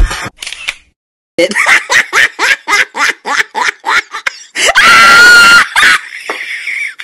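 Cartoon character laughing in a rapid run of about five ha's a second for some three seconds, then letting out one long high-pitched scream of about a second.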